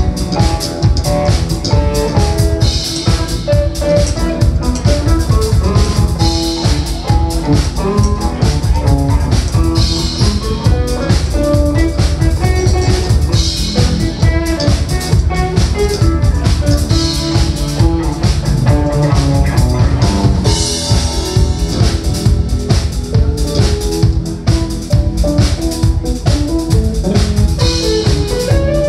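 Live band playing instrumental rock: electric guitars over a full drum kit with a steady beat.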